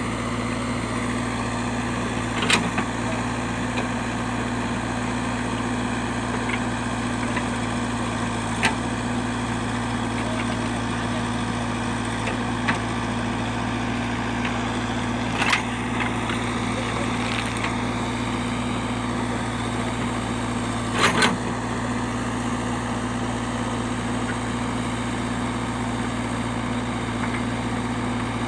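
A JCB's diesel engine running steadily at an even speed, with a few short, sharp knocks over it, about every six seconds.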